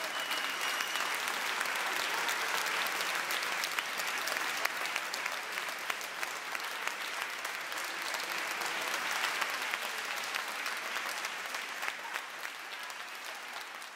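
Audience applause after a performance: dense, steady clapping that eases slightly near the end.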